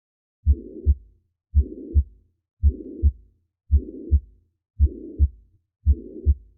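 Recorded heartbeat with a systolic murmur: six beats about a second apart, each a pair of low thuds (the first and second heart sounds) with a rough hiss filling the gap between them.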